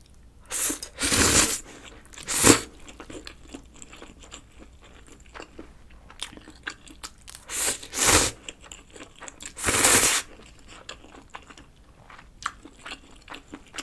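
A person eating instant stir-fried ramen noodles, with loud slurps about one, two and a half, eight and ten seconds in and soft chewing and mouth clicks between them.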